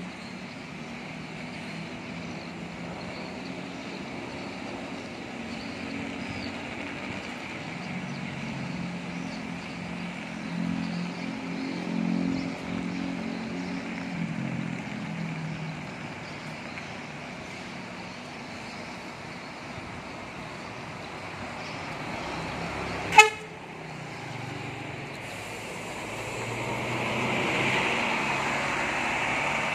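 Diesel engine of a Scania double-decker coach running as the coach pulls away, its note swelling for a few seconds partway through. About three-quarters of the way in, a single short, loud horn toot stands out above it.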